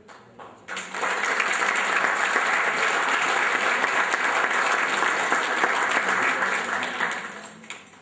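Audience applauding: clapping rises sharply about a second in, holds steady for some six seconds and dies away near the end.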